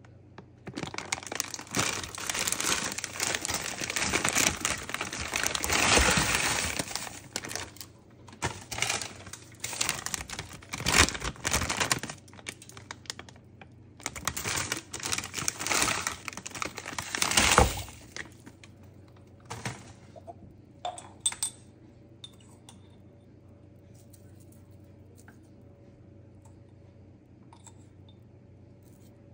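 Plastic bag crinkling as green broad beans, then artichoke hearts, are tipped out of their bags into a saucepan of water, in irregular bursts that stop about 18 seconds in. A couple of light clicks follow.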